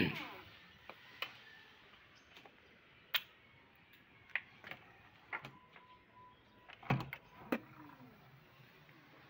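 Quiet indoor movement: a door handled and passed, with a sharp falling squeak at the start, scattered light knocks and clicks, and a short steady whistle-like tone about six seconds in.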